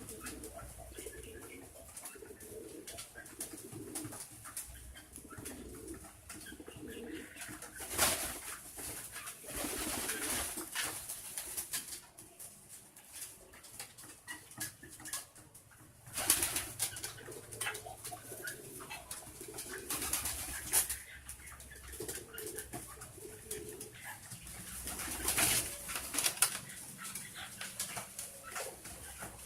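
Domestic pigeons cooing in low murmurs, broken several times by louder, brief rustling bursts.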